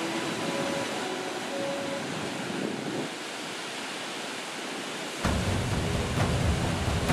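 Ocean surf breaking over rocks and washing up the sand: a steady hiss of foam, with a deeper rumble cutting in suddenly about five seconds in and making it louder.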